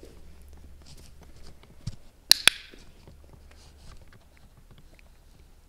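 Dog-training clicker clicking, two sharp clicks in quick succession about two and a half seconds in, marking the puppy's arrival in heel position. Faint taps of feet and paws on a concrete floor around it.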